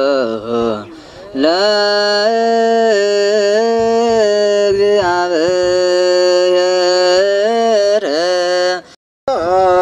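A single voice chanting an Ethiopian Orthodox hymn in long held notes that bend and waver. It breaks off briefly near the start and cuts out for an instant near the end.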